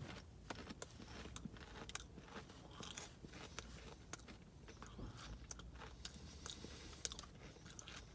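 A person chewing a mouthful of potato chip: faint, crisp crunches, the loudest right at the start, then a quieter run of small crackles.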